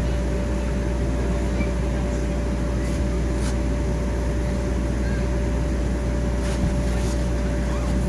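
Electric air blower keeping an inflatable Velcro wall up, running with a steady low hum and a constant whining tone. A few faint short scratchy noises come through over it.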